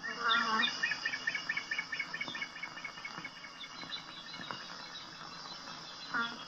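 Chirping animal calls: a rapid run of short, high chirps over a steady high hiss, fading after about four seconds, with a brief lower call near the end.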